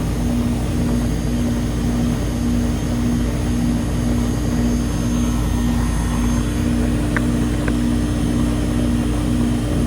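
An old R-22 central air conditioner's outdoor condensing unit running, its compressor and condenser fan giving a steady hum with an even pulsing in it. Two faint ticks about seven seconds in.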